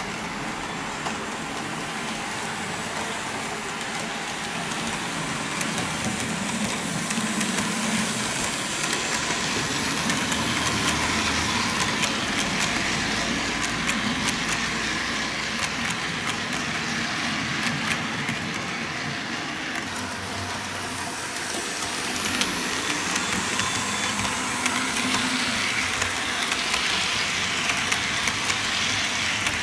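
HO-scale model train running along the track: a steady whirring with fine clicking from the wheels on the rails, swelling about a third of the way in and again near the end as the train comes by.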